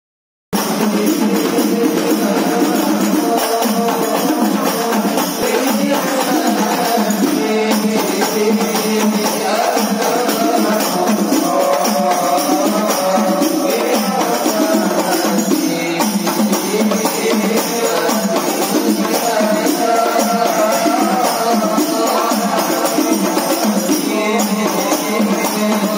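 Hadrah ensemble of rebana frame drums played in a fast, steady interlocking beat, with men's voices chanting a sholawat over it.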